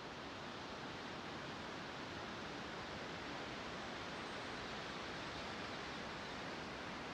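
Steady, faint rushing noise of outdoor ambience, even throughout, with no music or speech.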